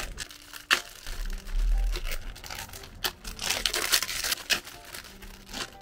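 Plastic packaging of an instant noodle cup crinkling as it is handled, with scattered small clicks and taps.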